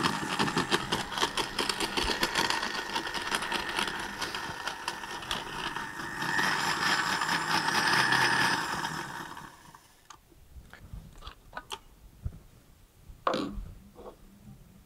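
Magimix countertop blender mixing ice cream and milk into a milkshake, started on its lowest speed. It gets louder about six seconds in and winds down after about nine seconds. A few clicks and a knock follow as the jar is lifted off the motor base.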